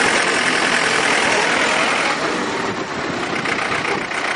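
Farm tractor engine running steadily while the tractor drives along.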